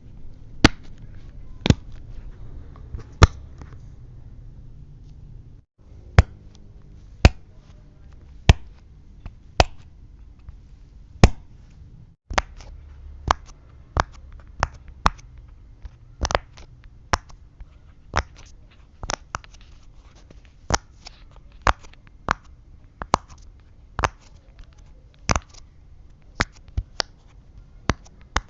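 Silicone pop-it fidget toy, its bubbles pressed in one at a time: sharp single pops about once a second, coming faster in the second half.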